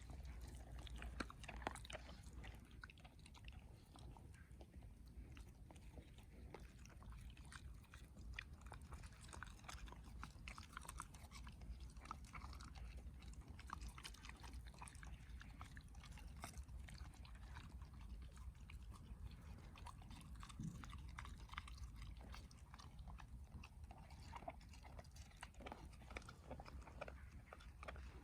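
A dog chewing and tearing at grass: faint, irregular small crunches and snaps of chewing throughout.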